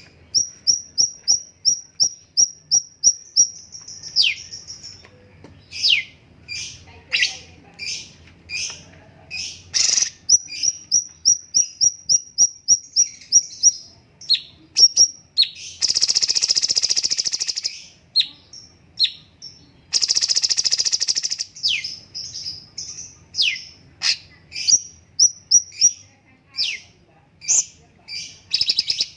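Cucak cungkok singing a loud, varied song: fast trills of short high notes, sharp downward-sweeping whistles, and two harsh rattling stretches of about two seconds each past the middle.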